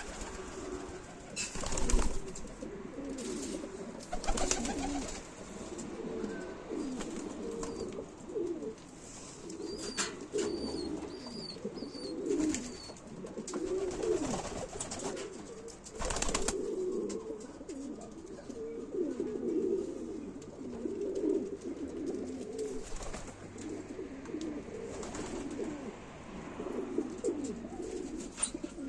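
Many domestic pigeons cooing continuously, their low coos overlapping. A few sharp clatters cut in, the loudest about two seconds in, and a short run of high chirps comes near the middle.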